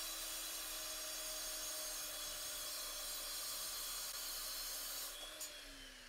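VEVOR 9-inch 1800 W electric concrete saw with a diamond blade, cutting wet through a concrete block with a steady whine. Just after five seconds the trigger is released with a click and the motor winds down, its pitch falling.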